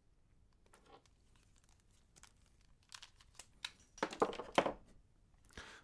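Handling noise on a workbench: a hot glue gun and its cord being set down and tools moved about in a plastic storage box, with scattered light clicks and rustling and a louder clatter about four seconds in.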